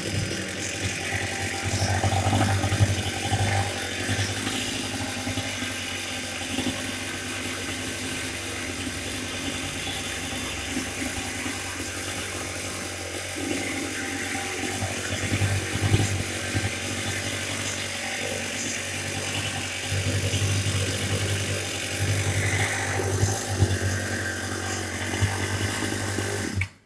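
Chainsaw engine running steadily, with small swells in level, cutting off suddenly at the end.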